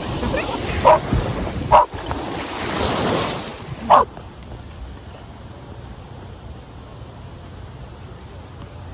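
Wind and lake waves washing, with a dog barking in short sharp barks three times, the last and loudest just before it cuts to a quieter steady outdoor background.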